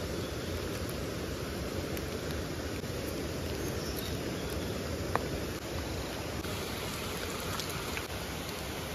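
Steady, deep rushing noise of water outdoors, with one sharp click about five seconds in.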